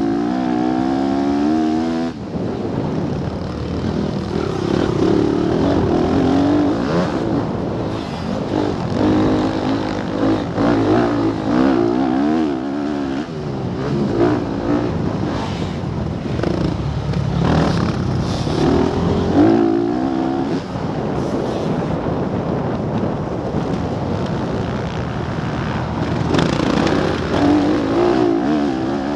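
Motocross bike engine revving hard under the rider's throttle, its pitch climbing and dropping again and again with short breaks as the rider shifts and backs off over the track. Heard close up from a camera mounted on the bike.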